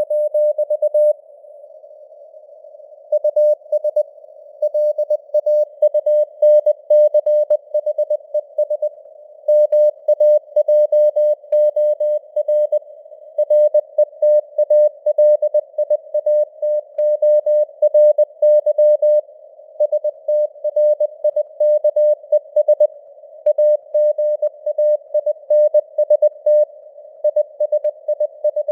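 Morse code sent at 20 words per minute as an on-off keyed tone of about 600 Hz, in short dots and longer dashes. It sits in simulated radio noise, a narrow band of hiss around the tone that fills the gaps between characters, and the signal strength varies (QSB fading). There is a pause of about two seconds about a second in.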